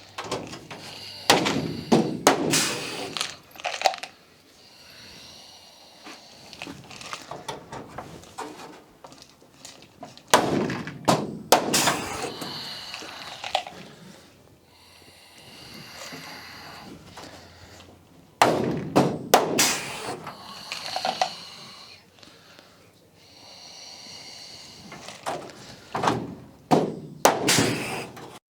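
Aluminium wing tip skin being handled and clecoed back onto the wing: clattering knocks, clicks and rattles of thin sheet metal in four bursts about eight seconds apart, with quieter handling noise between.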